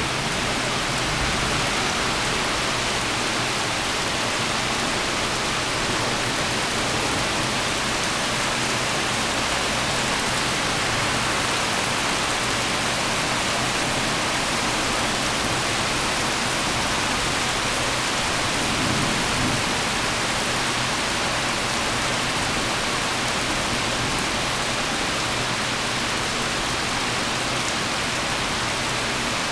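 Heavy rain pouring down and splashing on surfaces: a steady, even rush.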